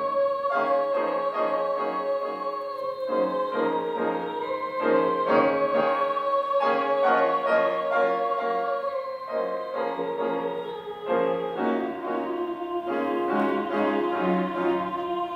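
Instrumental keyboard music: a long held melody note over chords that change every second or so.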